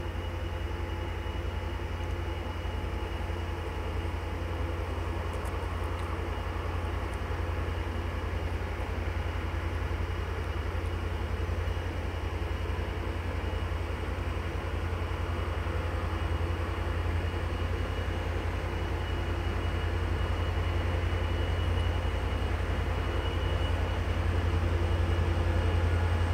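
Diesel engines of an approaching coal train led by an M62M and a 15D locomotive working in tandem: a steady low drone that grows gradually louder as the train draws nearer.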